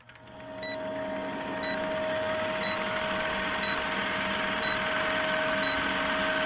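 Old-film countdown sound effect: a film projector's rapid clatter with hiss and a steady hum, and a short high beep about once a second.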